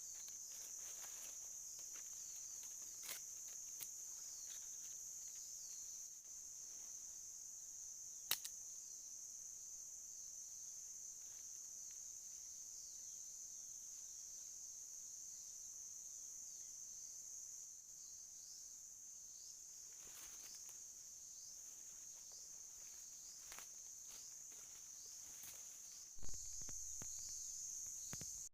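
Steady high-pitched chorus of insects, with a few faint clicks and a sharper knock about eight seconds in.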